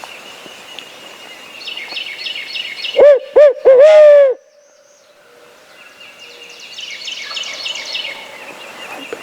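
Three loud, close owl hoots about three seconds in, two short and one longer and drawn out, in a barred owl's style, typical of an owl locator call blown to make turkeys gobble. Songbirds chirp repeatedly before and after.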